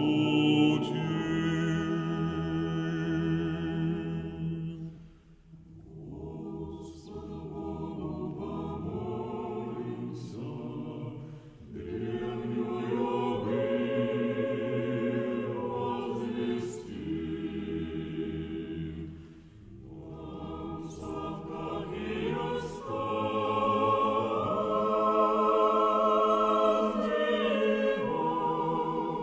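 A choir singing slow, sustained phrases, with brief pauses between phrases about five, twelve and twenty seconds in.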